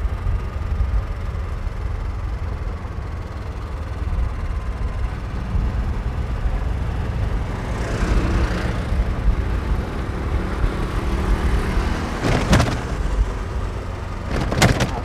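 A golf cart in motion, with wind rumbling on the microphone and the cart's road noise. Two sharp knocks come near the end.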